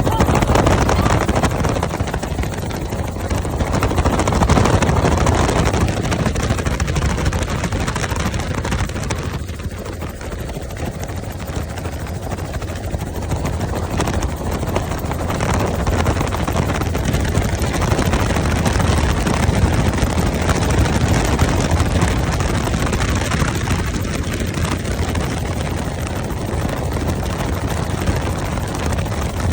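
Helicopter rotor and engine running, a loud steady noise that swells and eases a little.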